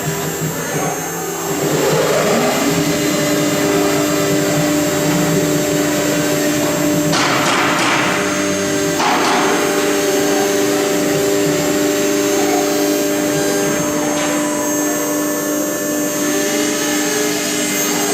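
FL-6090 CNC router's spindle motor running with a steady whine whose pitch rises about two seconds in, while the bit cuts wood. Twice around the middle, a louder hiss of cutting comes in for about a second.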